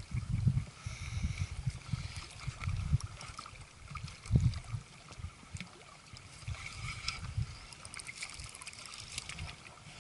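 Uneven low wind rumble on the microphone, with light splashing and lapping of water and a few small clicks and knocks from handling the rod and reel.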